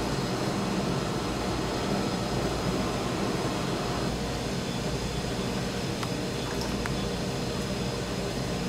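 Steady whirring fan noise with a low hum, with a couple of faint clicks about two-thirds of the way through.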